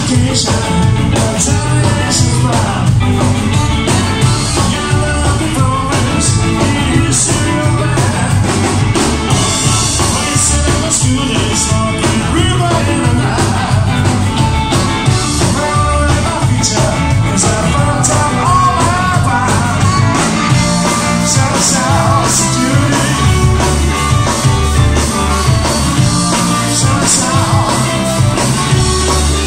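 Live ska band playing loudly: electric guitars and trombone over drums, in a continuous groove.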